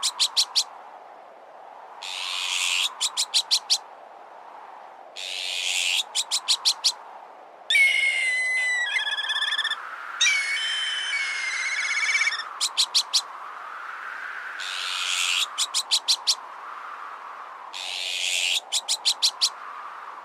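Synthetic bird-deterrent sound mix. A harsh rasping call followed by a quick run of five sharp clicks repeats about every three seconds over a whistle-like tone that slowly rises and falls. Near the middle come two longer whistled bird calls with warbling trills.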